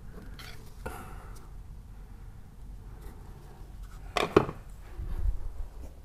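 A wall light-switch cover plate being worked off with a screwdriver, with small clicks. About four seconds in there is a loud clatter of hard objects as the plate and screwdriver are set down on the shelf, followed by a couple of dull thumps.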